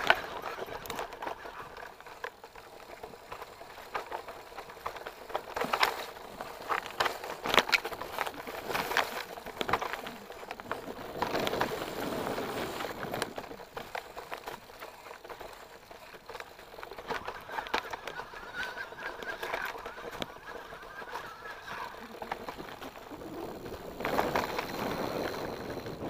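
Mountain bike riding down a rough dirt forest trail: the bike rattles and clatters over roots and stones, with tyre noise and wind. There is a run of sharp knocks about six to nine seconds in, and a high wavering squeal between about 17 and 22 seconds in.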